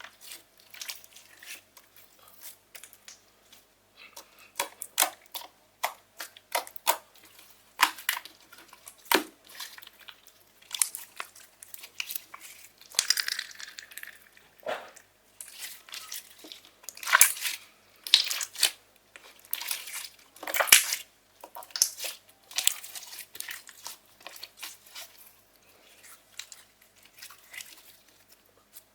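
Slime being kneaded and stretched by hand, making irregular sticky clicks, pops and crackles.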